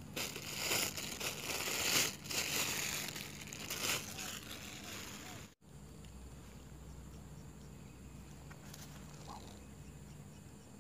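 Close, uneven rustling and crinkling near the microphone, with crackly spikes. It cuts off abruptly a little past halfway, leaving only faint steady outdoor background with a low hum.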